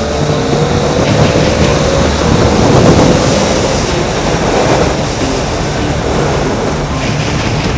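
Triumph Tiger 800 XCx three-cylinder engine pulling hard under way, its note rising slowly over the first few seconds, mixed with heavy wind rush on the microphone.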